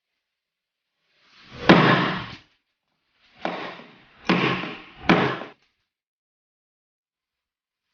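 Four chopping blows of a large folding knife's blade biting into wood: one heavy strike, then three quicker ones about a second apart, each a sharp hit with a short splintering tail.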